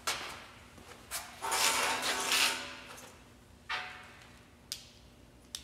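Metal hand tools being handled on a steel workbench: a clank, about a second of rattling and scraping, then a ringing knock and two sharp clicks as calipers are picked up.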